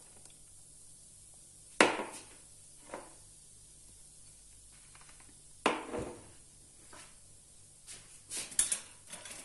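Objects being set down on a hard kitchen countertop: two sharp knocks about four seconds apart, a weaker one between them, and a few light clicks near the end, as the glass mug and soda bottle are put aside.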